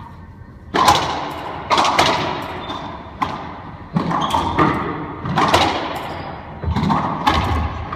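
Racquetball rally: a string of sharp cracks, roughly one or two a second, as the ball is struck by the racquets and slams off the court walls. Each hit rings out in the enclosed court.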